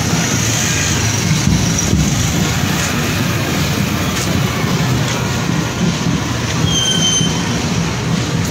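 Street traffic: a pickup truck driving slowly past close by, with a steady engine and road rumble. A short high whistle tone sounds about seven seconds in.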